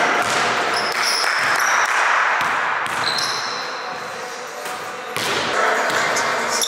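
Basketballs bouncing on a hardwood gym floor, with short high-pitched sneaker squeaks, during a shooting workout.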